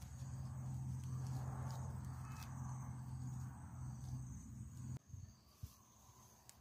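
Insects, crickets, keep up a steady high-pitched drone. Under them a low steady hum and scattered small clicks, as sticks are handled at a smoking fire pit, stop suddenly about five seconds in, leaving only the insects.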